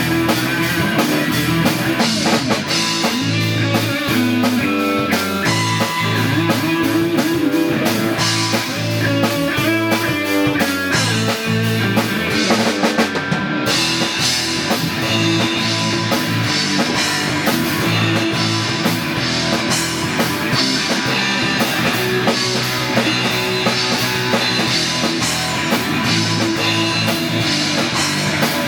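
Rock music with guitar and drum kit playing continuously.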